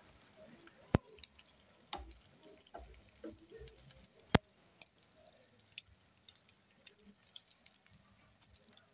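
Spring rolls frying in a pan of hot oil, the oil bubbling and crackling softly with many small ticks. Tongs knock against the pan and rolls a few times, the sharpest clicks about one second and four and a half seconds in.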